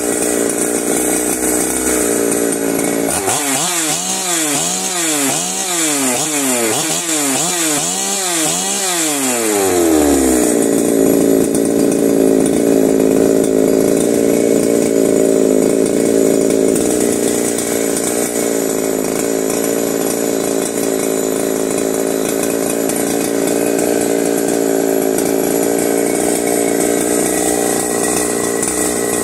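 Ported Holzfforma G372XP two-stroke chainsaw running on its own without cutting. A few seconds in, its speed swings up and down about once a second for several seconds, then drops back and runs steadily.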